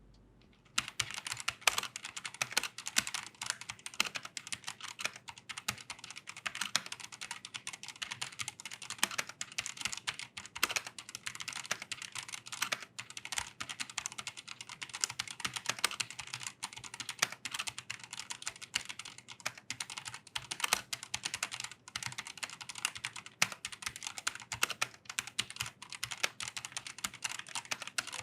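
Typing on a TKL mechanical keyboard with Outemu Red linear switches and pudding keycaps, in a fast, continuous stream of keystrokes that starts just under a second in.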